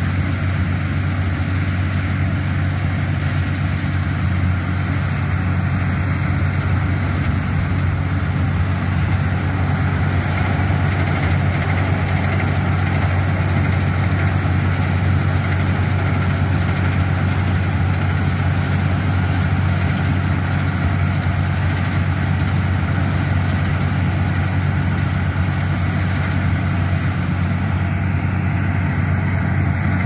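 Javatech rice combine harvester running steadily while harvesting, a constant loud engine hum mixed with the rushing noise of its cutting and threshing machinery.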